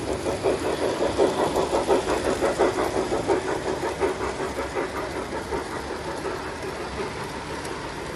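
Model train running past on the layout track with a rhythmic clatter, about three beats a second. It fades gradually over the second half as the train moves away.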